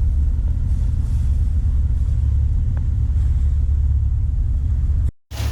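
Steady low drone of a sailboat's engine running while motoring. It cuts off abruptly about five seconds in.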